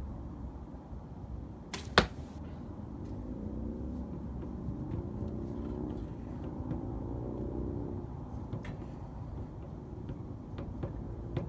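A compound bow shot about two seconds in: a sharp snap of the string release, followed a fraction of a second later by the arrow striking the target. A faint low drone runs through the middle.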